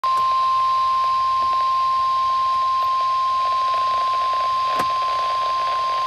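NOAA Weather Radio warning alert tone, the steady single-pitch 1050 Hz attention signal, sounding through a Midland handheld weather radio's speaker over a hiss of radio static. It signals a severe thunderstorm warning.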